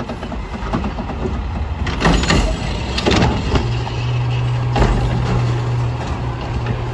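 Autocar WXLL garbage truck with a McNeilus front-loader body, its diesel engine running, with metal clanks and knocks about two to three seconds in. About three and a half seconds in a steady low hum sets in.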